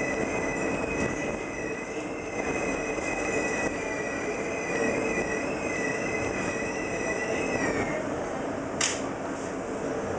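Miami Metrorail train running, heard from inside the car: a steady rumble under a high, wavering wheel squeal that dips in pitch and stops about eight seconds in. A single sharp click follows near the end.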